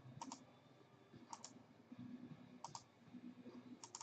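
Faint computer mouse clicks: four short double clicks about a second apart.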